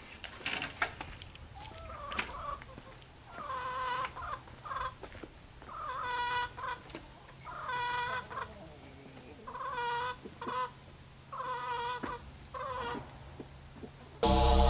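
Chickens clucking: about six drawn-out hen calls, one every couple of seconds. A few sharp clicks sound in the first two seconds, and loud electronic music cuts in just before the end.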